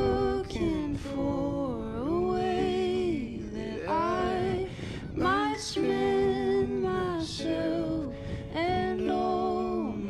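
Background music: a song with a sung vocal line, its notes held for about a second each with smooth glides between them.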